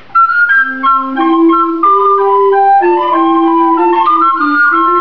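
A recorder ensemble of several sizes playing an early-music piece in several parts, starting together a fraction of a second in.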